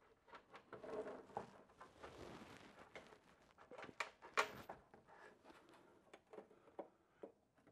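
Hand tools working on the mounting nuts and studs under a Porsche 911's front bumper to remove it: faint scattered metal clicks, taps and rustling, with two sharper clicks about four seconds in.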